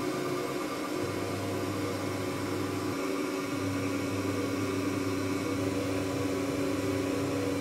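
Makera Carvera desktop CNC milling a copper-clad PCB: the spindle runs with a steady whine over the hiss of the dust-extraction vacuum. A low hum comes in about a second in and drops out briefly around three seconds in as the machine moves.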